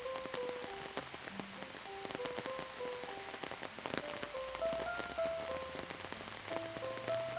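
Steady rain with many separate drop hits, under a slow, soft melody of single held notes over a low sustained tone.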